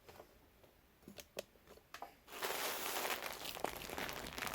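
A few faint clicks, then from a little over two seconds in, packaging crinkling continuously as the plush toys are pulled out and handled.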